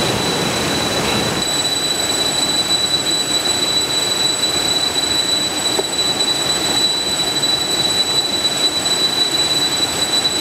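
Shallow stream rushing over rocks and fallen branches: a steady, even rush of flowing water, with a thin steady high-pitched tone over it.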